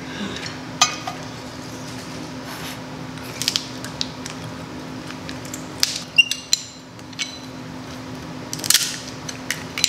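Scattered sharp clicks and cracks of crab-leg shells being cracked and handled while eating, over a steady low hum.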